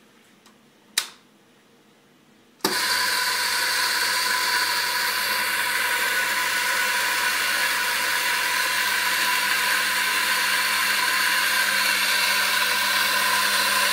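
A single click, then an electric coffee grinder's motor switches on abruptly and runs with a steady, loud whir.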